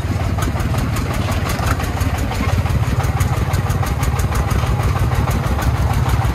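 Single-cylinder diesel engine of a công nông, a home-built Vietnamese dump truck, chugging as it hauls a load of earth, with a steady, rapid thudding beat. It gets a little louder about two and a half seconds in.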